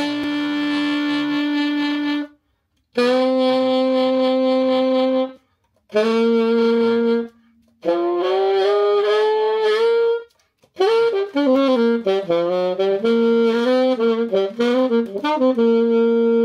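Saxophone playing five phrases separated by short breaks: a long held note, another long held note a little lower, a short note, a rising run, then a longer melodic line with quick note changes.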